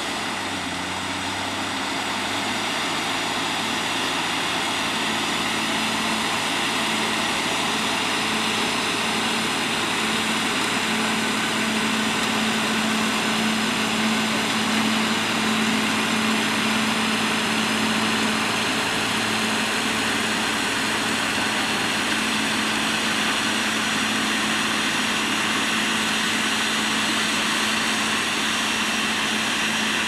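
New Holland TM135 tractor's diesel engine running steadily under load while it pulls and drives a power harrow and seed drill across tilled ground. It is a constant drone that grows slightly louder over the first few seconds, then holds.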